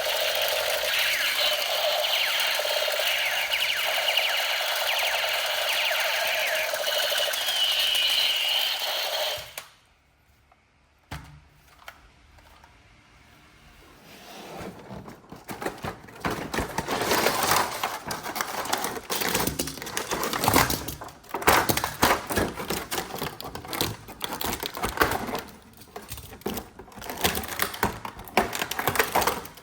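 A small electric motor whirring steadily, which cuts off suddenly about a third of the way in. After a few quiet seconds comes a run of irregular plastic clicks, knocks and rattles from handling.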